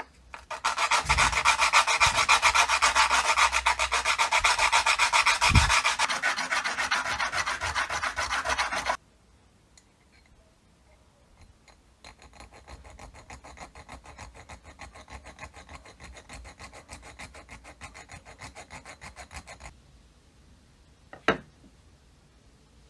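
Rapid, evenly repeated rasping strokes of a tool rubbing on the old charcoal iron's metal, loud for about eight seconds. After a short pause, a quieter run of the same strokes lasts about eight seconds, and a single sharp click comes near the end.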